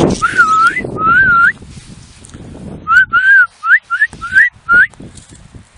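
A person whistling to call a free-flying budgie back: two drawn-out wavering whistles, then after a pause a quick run of short rising whistles.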